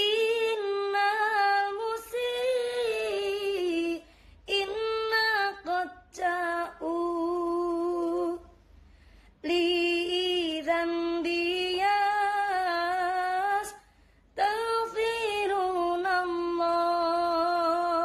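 A woman singing unaccompanied in an Islamic devotional sholawat style, in several phrases of long held notes with ornamented turns, separated by short breaths.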